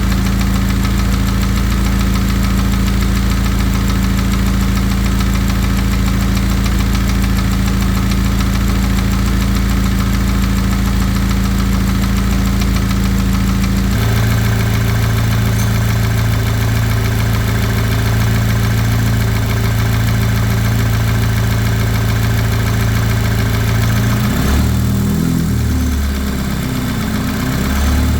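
Turbocharged four-cylinder VW/Audi EA888 engine idling, with the noise the owner takes for piston slap. About halfway through, the idle note drops, and near the end the revs rise and fall several times.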